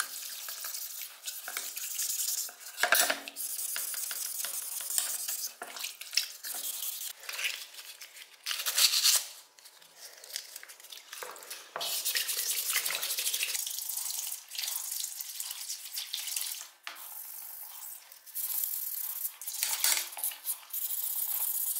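Iron scissors being washed in a sink: a brush scrubbing and water splashing in irregular stretches, with the metal clinking and knocking against the basin now and then.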